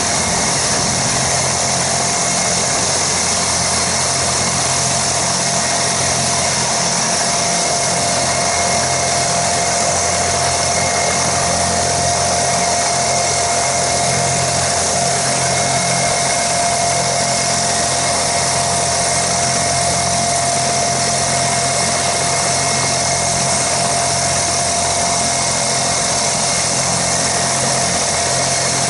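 Kazan Ansat air-ambulance helicopter running on the ground, its twin turboshaft engines giving a steady high whine over a rushing noise while the main rotor turns before takeoff.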